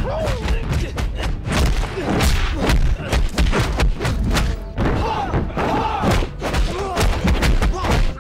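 Rapid flurry of film punch and kick impact sound effects, several hits a second, with the fighters' short shouts and grunts over background music.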